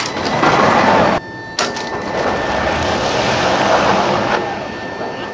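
Electromagnetic catapult (EMALS) firing a dead-load test sled down its track: a loud rushing noise that starts suddenly, drops out briefly a little over a second in, comes back and fades away near the end. A faint steady high whine runs underneath.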